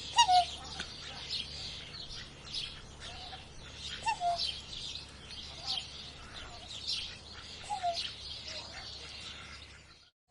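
Many birds chirping in a continuous high chatter, with a lower, falling call every couple of seconds. The sound cuts out briefly just before the end.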